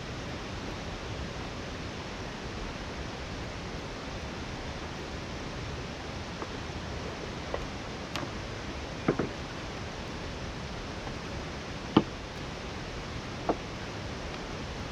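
Steady rush of falling water, with a few short sharp clicks or knocks in the second half.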